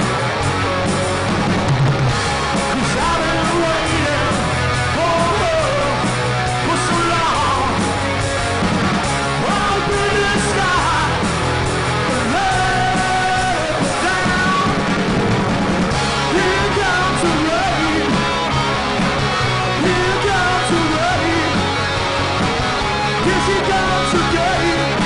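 Live rock band playing at full volume: electric guitars, bass and drums, with a singer's voice shouting and singing over them at times.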